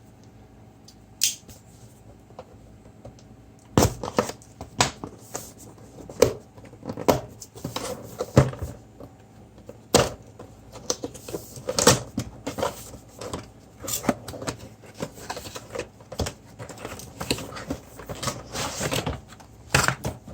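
A cardboard headphone box being opened and unpacked by hand: irregular clicks, taps and rustles of card and contents being handled. There are only a few of them at first, and they come thick and fast from about four seconds in.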